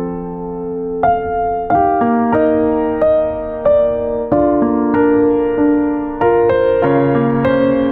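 Background music: a soft electric piano playing a slow melody over held chords, a new note struck about every half second.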